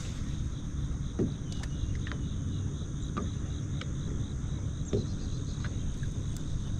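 Steady high-pitched chorus of insects such as crickets ringing from the shoreline, over a low rumble, with a few scattered light clicks.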